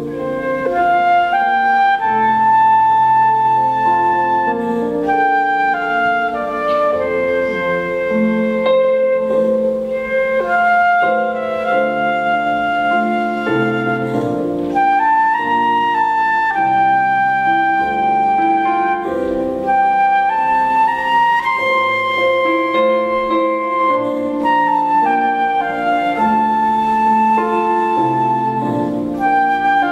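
School ensemble playing a slow instrumental passage, with flutes carrying the melody over held accompanying chords.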